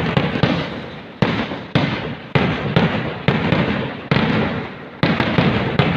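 Kerala temple-festival fireworks (vedikettu) going off in a rapid string of loud bangs, roughly two a second, each followed by a decaying echo.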